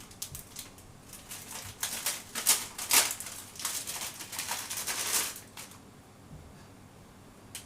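Irregular clicking, clattering and rustling of small dryer parts being handled during repair work on a Hitachi clothes dryer, stopping about six seconds in.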